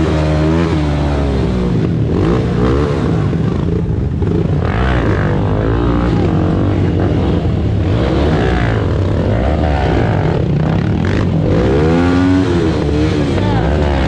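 Enduro motorcycle engine revving up and down again and again as it is ridden, the pitch rising and falling every second or two.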